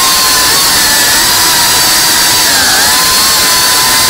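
3.5-inch cinewhoop FPV drone's motors and propellers whining steadily in flight, the pitch dipping briefly under three seconds in and coming back up as the throttle eases and returns.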